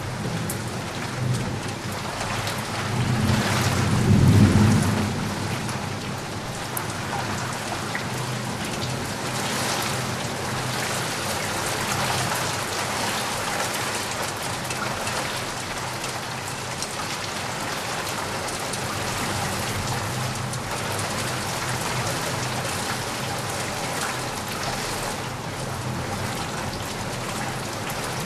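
Steady rain falling and pattering on surfaces, with a low roll of thunder that swells and fades about three to five seconds in.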